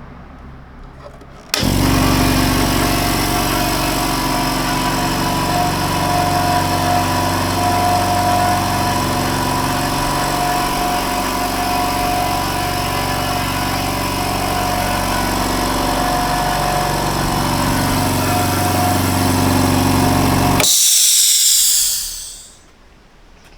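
Electric air compressor switching on suddenly and running steadily for about 19 seconds, then cutting out, followed by a short high hiss of air being released.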